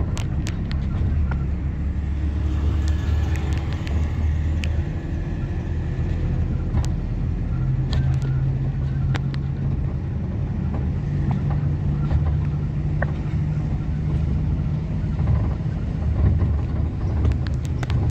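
Engine and road rumble heard from inside a moving vehicle. The low engine note shifts in pitch a couple of times, and small rattles and clicks come through now and then.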